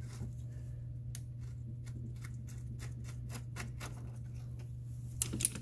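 Ratcheting wrench clicking in short, irregular runs while a tight radiator mounting bolt is worked back and forth out of its plastic-mounted nutsert, over a steady low hum.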